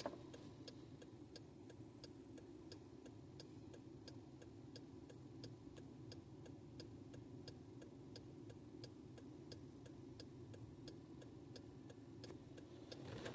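Jeep Grand Cherokee hazard-light flasher ticking faintly and evenly, about three ticks a second, heard from inside the cabin with the engine off, over a low steady hum.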